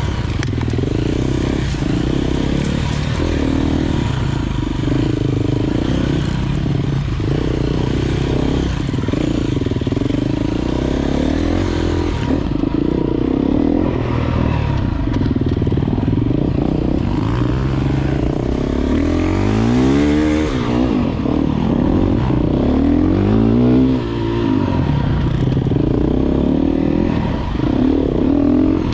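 Enduro dirt bike engine running under load as it is ridden along a forest trail, its revs repeatedly rising and falling, with quick rev-ups about twenty seconds in and again a few seconds later.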